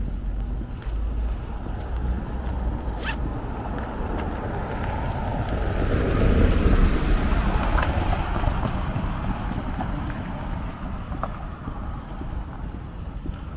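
A vehicle driving past on the street, its noise swelling to a peak about halfway through and then fading away, over a steady low rumble.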